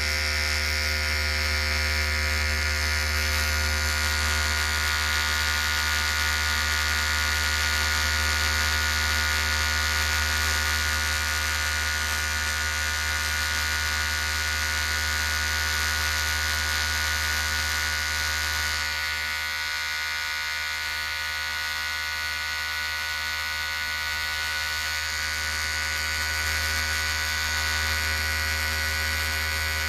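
Electric hair clipper running with a steady buzz, dipping slightly in level about two-thirds of the way through.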